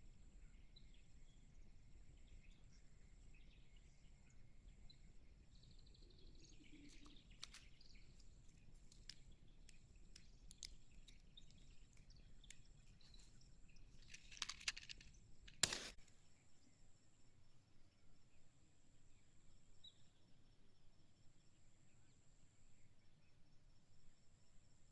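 Near silence with faint outdoor background and scattered light clicks. About fifteen seconds in there is a short scratchy burst, then a single sharp click.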